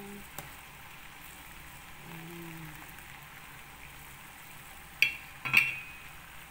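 Water with sago pearls boiling hard in an enamelled cast-iron pot: a steady bubbling hiss. Two sharp clinks come near the end.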